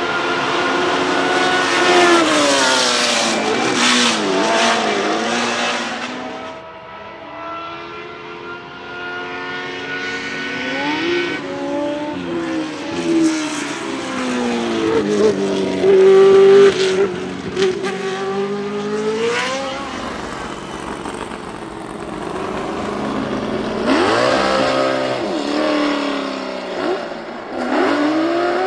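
Historic Formula 1 race cars passing one after another at speed, their high-revving engines sweeping up and down in pitch through gear changes and as each car goes by.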